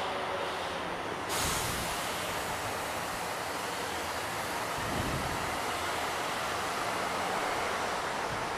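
Slow road traffic in a tunnel: a steady rumble and rush of engines and tyres echoing off the tunnel walls, heard from a slowly moving motorcycle. About a second in, a hiss rises suddenly and stays.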